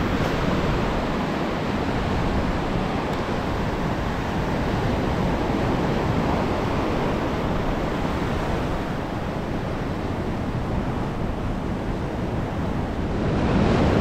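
Ocean surf breaking and washing up the beach in a steady rush. It swells near the end as a wave runs in.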